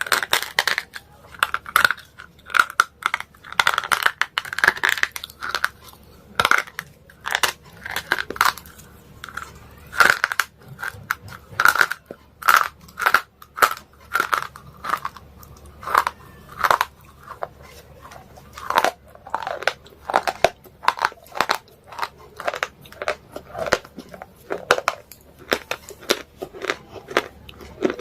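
Slate pencils being bitten and chewed close to the microphone: sharp, irregular crunches, several a second.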